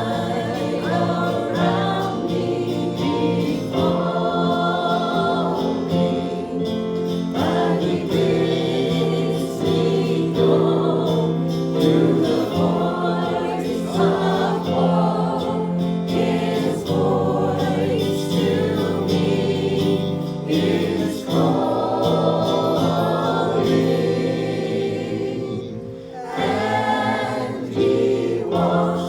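Gospel music: voices singing sustained phrases over held accompanying notes.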